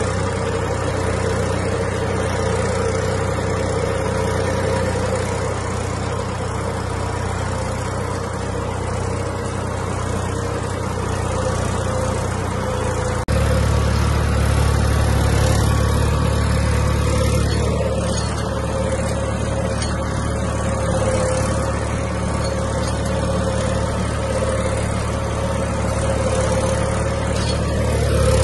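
Massey Ferguson 245 tractor's three-cylinder diesel engine running steadily while pulling a seed drill. About thirteen seconds in the sound abruptly becomes louder and deeper, then holds steady again.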